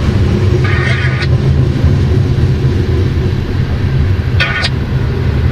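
Freight train of covered hopper cars rolling past, a steady low rumble of wheels on rail. Two short high-pitched tones cut in, one about half a second in lasting under a second and a briefer one near the end.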